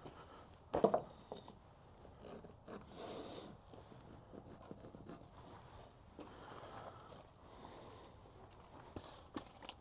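Quiet handling of a wooden board: rubbing and scraping of wood, with one knock about a second in.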